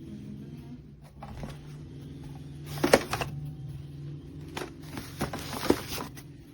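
A padded fabric carrying bag being handled: rustling, with a few sharp clicks and knocks, the loudest about three seconds in.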